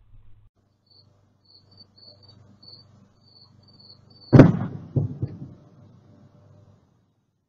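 Sonic boom from a meteor (bolide) exploding high in the atmosphere: one sudden loud boom about four and a half seconds in, followed within a second by two weaker booms that fade out. Faint high chirps come before it.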